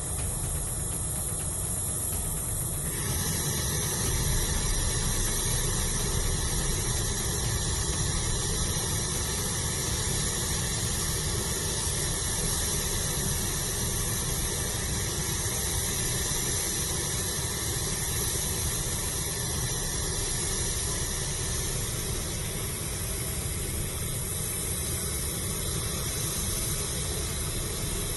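Steady rushing hiss of a military transport aircraft's turbine running on the ground. About three seconds in, a high-pitched whine comes in and holds steady.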